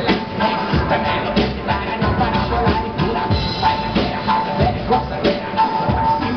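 Live band music with a drum kit playing a steady beat, kick drum and snare, under a sustained melodic line.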